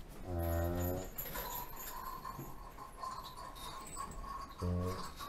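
Cow giving two short, low, closed-mouth lows, one about half a second in and a shorter one near the end, with a faint steady high tone between them.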